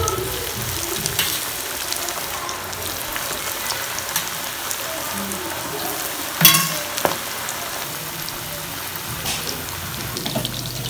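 Food deep-frying in a wok of hot oil: a steady crackling sizzle with scattered small pops. A sharp, louder crack about six and a half seconds in, and a smaller one just after.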